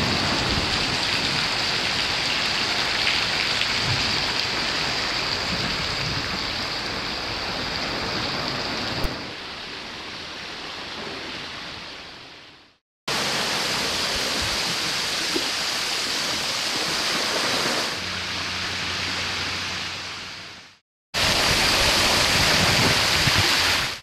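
A thin waterfall spilling down a sea cliff, its falling water spattering close by as a steady, rain-like hiss. It cuts off abruptly twice and starts again.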